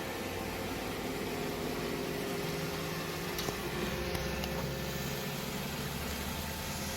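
iRobot Roomba j7+ robot vacuum running: a steady whir from its suction fan and motors, with a few faint clicks a few seconds in.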